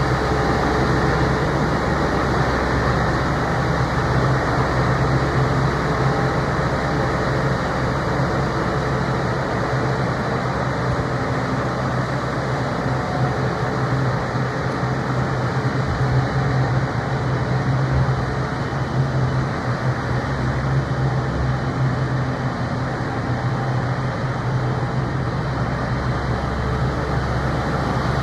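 Claas Jaguar 960 self-propelled forage harvester's diesel engine running steadily, a constant low drone.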